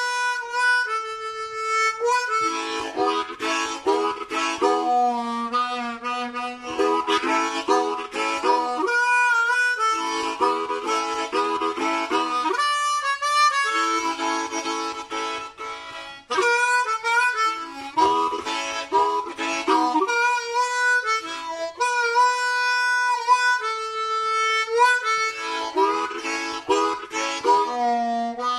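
Blues harmonica (diatonic blues harp) played solo, cupped in both hands: a blues solo of quickly changing notes, with bent, sliding notes and a brief break a little past halfway.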